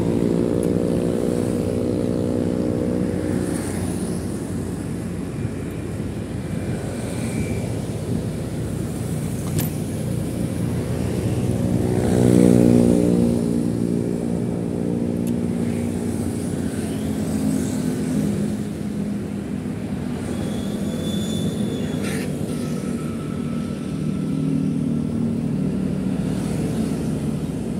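Motorcycle engine running while riding, its pitch rising and falling as it speeds up and eases off, loudest about twelve seconds in, over steady road and wind noise.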